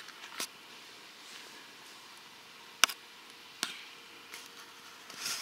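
A few isolated sharp clicks and snaps over a faint steady hiss, the loudest a little under three seconds in, with a short rustle near the end.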